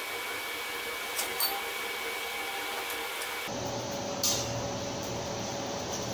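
Air blower on a coal forge running with a steady rushing hiss, its tone changing abruptly about halfway through. A few light metallic clinks of hot iron stock against the forge come about a second in and again just past four seconds.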